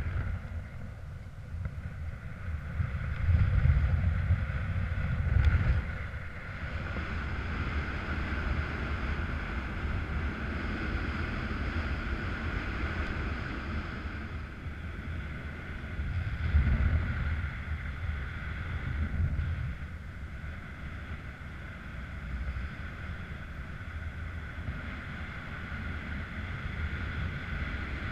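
Wind rushing over the microphone of a camera on a paraglider in flight: a steady, buffeting low rumble with a constant hiss above it, gusting louder a few seconds in and again about halfway through.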